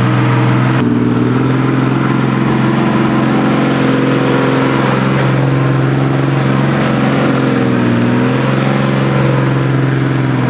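Explosion-proof tugger's Chrysler-Nissan diesel engine running steadily on the move, its speed dipping briefly and picking back up about eight seconds in.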